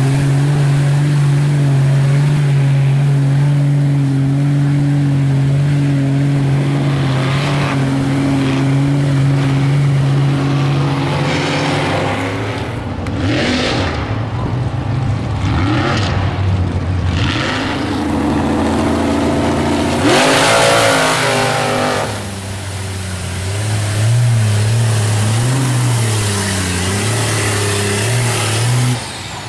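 Mud trucks' engines revving hard as they plow through a mud pit. An engine holds a steady high pitch for the first half, then the sound turns rough and uneven, with a loud rush of noise about two-thirds of the way in. Near the end an engine's pitch wavers up and down.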